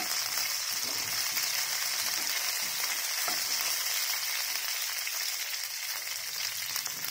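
Hot oil in a nonstick pan sizzling steadily around freshly added curry leaves, green chilli, garlic and mustard seeds, with a spatula stirring through them now and then.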